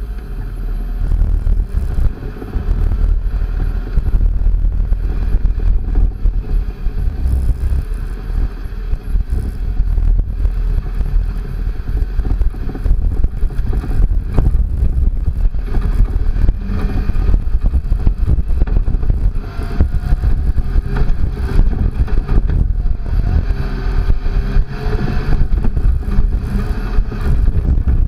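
Second-generation Toyota Tacoma prerunner driving over a rough dirt track: engine running with a heavy rumble and frequent knocks and clatter from the bumpy surface.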